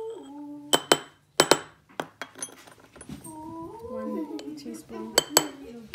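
Ceramic measuring spoons clinking against the rim of a small glass jar as powder is tipped and tapped out: sharp clinks in two quick pairs about a second in and another pair near the end. A wavering, pitched voice-like sound comes and goes in the background.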